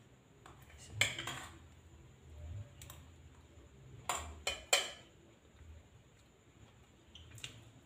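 Metal spoon clinking and scraping against a plate of rice as food is scooped up: a few sharp taps, with three in quick succession about four seconds in.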